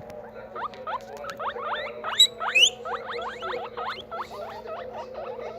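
Guinea pigs wheeking: a rapid run of short rising squeals, several overlapping at once, loudest a little after two seconds in.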